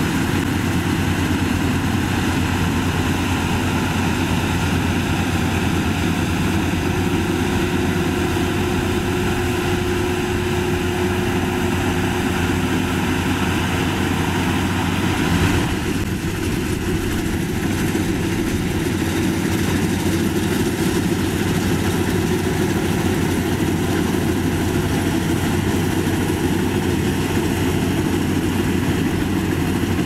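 Rice combine harvester's engine and threshing machinery running steadily as it cuts and threshes a paddy crop, with a brief dip in the sound about halfway through.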